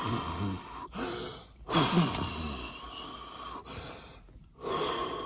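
A person breathing heavily in three long, noisy breaths.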